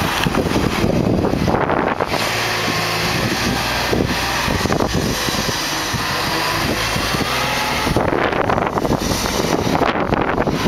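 Flatbed truck's engine running steadily as the truck pulls up and stops close by, with wind buffeting the microphone.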